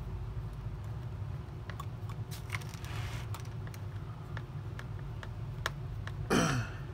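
Small plastic clicks and rattles as a spring holder is handled and fitted into a Dyson DC40 vacuum's ball assembly, with a brief scrape that falls sharply in pitch near the end. A steady low hum runs underneath.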